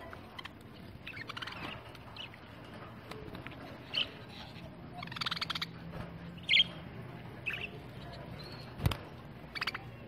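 Pet budgerigars chirping and chattering: scattered short, high chirps with a couple of buzzy, pulsing bursts of chatter. A single sharp knock sounds near the end.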